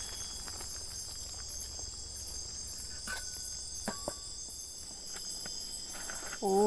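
Forest insects, crickets or cicadas, keeping up a steady high-pitched drone. A few light clicks or knocks come about halfway through.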